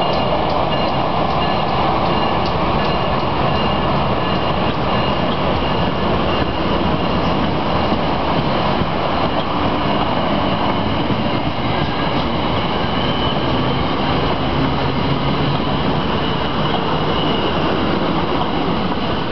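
New Jersey Transit passenger coaches behind an ALP-44 electric locomotive rolling past on steel rails: a loud steady rumble and hiss of wheels on track, with a few thin steady high tones over it and faint regular clicking in the first few seconds.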